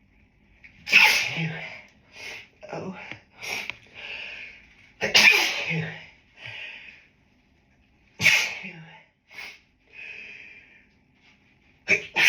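A person sneezing in an allergic fit: three big, loud sneezes roughly three to four seconds apart, with shorter, softer sounds between them, and another sneeze starting at the very end. The sneezes are an allergic reaction to a dog, on top of grass-pollen hay fever.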